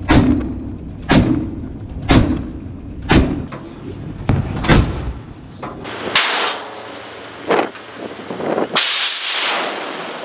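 Naval deck gun firing in rapid succession, six shots about a second apart, each with a ringing tail. Near the end a loud blast and rushing roar as an anti-ship missile leaves its deck launch canister.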